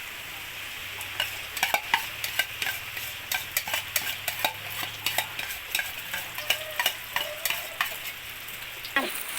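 Beaten eggs frying with garlic in hot oil in a pan: a steady sizzle with many irregular crackling spatter pops.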